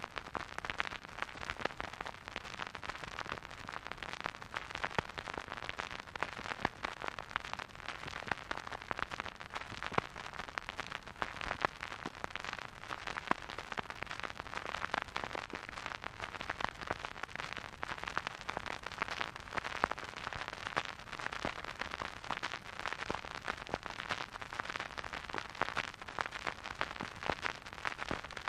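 Vinyl record surface noise from a spinning turntable: a soft, steady hiss thick with irregular crackles and pops.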